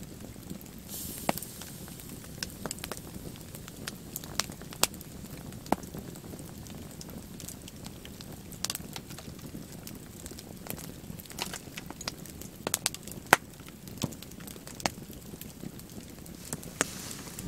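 Campfire crackling, with sharp, irregular pops over a low, steady rush.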